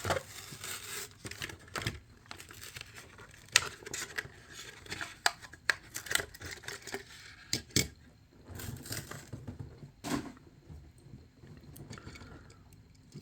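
A Hot Wheels plastic-and-cardboard blister pack being torn and crinkled open by hand, with irregular sharp crackles and clicks.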